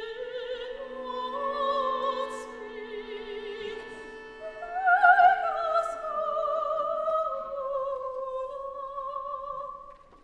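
Operatic soprano singing with wide vibrato over a string orchestra holding sustained chords. About four and a half seconds in she rises to the loudest, highest note, then holds a long note that sinks slowly in pitch and stops near the end.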